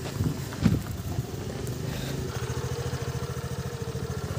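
Small petrol scooter engine running steadily under load up a slope, a pulsing drone. On this climb it is short of power. There are a couple of short louder sounds in the first second.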